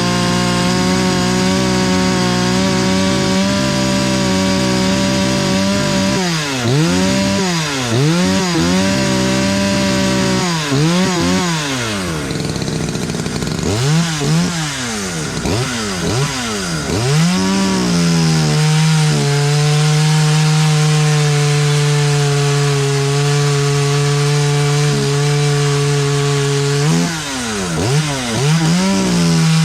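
Ported two-stroke Poulan Predator chainsaw with a custom welded exhaust running flat out at a steady high pitch, then revved up and down again and again while the carburetor is tuned. From about 19 s in it holds a steady, lower pitch, as under load in a cut, with two quick revs near the end.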